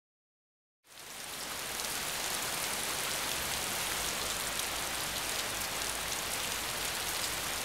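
Silence, then steady rain fades in within about a second, an even hiss dotted with many small drop ticks.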